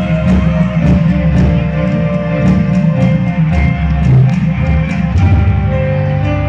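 Loud music with guitar and drum kit playing to a steady beat.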